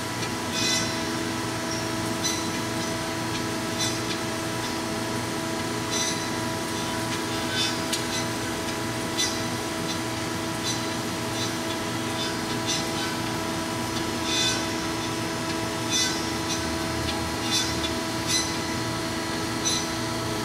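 Marvel Series 15A automatic horizontal band saw running in automatic: a steady motor and hydraulic hum with several held tones, broken by brief high clicks every second or two.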